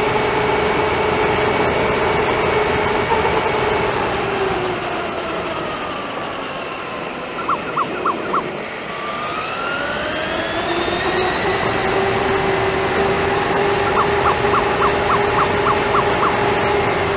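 Traxxas E-Maxx RC monster truck's electric drivetrain whining at speed over tyre noise on asphalt. The whine drops in pitch as the truck slows about four seconds in, then rises again as it speeds up around ten seconds. A quick run of short high chirps comes twice, four near the middle and about eight near the end.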